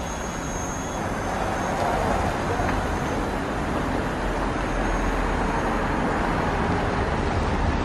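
Steady hum of city road traffic, an even rumble with no single event standing out.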